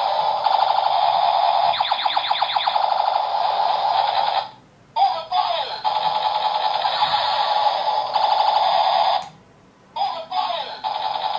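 Electronic sound effect from a toy revolver's small built-in speaker: a harsh, tinny electronic buzz with rapid ticking, playing in three long bursts. The second and third bursts open with a quick falling zap, and each burst cuts off suddenly.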